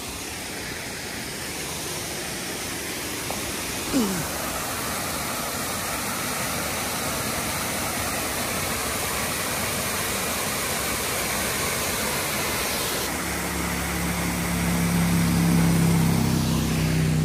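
Waterfall water rushing steadily, with a low steady hum coming in over the last few seconds.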